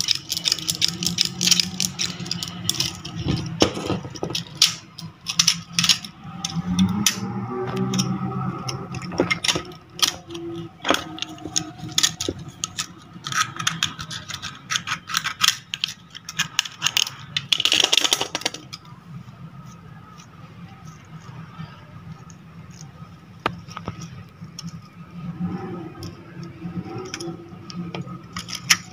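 Small metal hand tool clicking and scraping against a rewound motor armature as copper wire leads are set into the commutator, many sharp ticks with a brief scraping hiss about eighteen seconds in, over a steady low hum.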